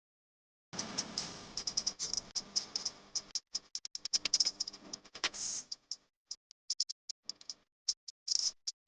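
Dry, crisp bhel puri ingredients, puffed rice and the like, being tossed and stirred in a bowl with a spoon: a quick, irregular clatter of small clicks and rattles. It thins out to scattered clicks after about five seconds.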